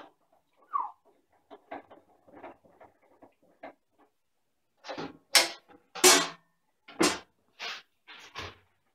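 Clicks, knocks and clatter of a jointer/planer's parts being handled as the machine is switched from planer to jointer mode: its dust-collection hood is unfastened and lifted off the cutterhead. A brief squeak comes near the start, then a run of sharper clanks in the second half.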